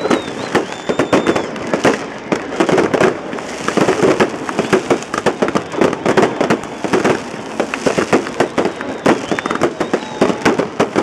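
Fireworks bursting overhead in a dense, rapid run of bangs and crackles, with no let-up.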